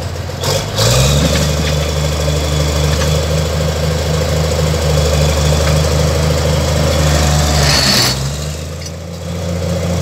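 Crawler bulldozer's diesel engine revving up about a second in and running steadily under throttle as the machine moves off, then dropping back toward idle near the end.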